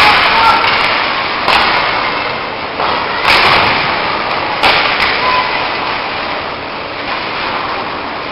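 Ice hockey play in an arena: skates scraping across the ice, with several sharp knocks from play (stick, puck and boards) that ring out in the hall.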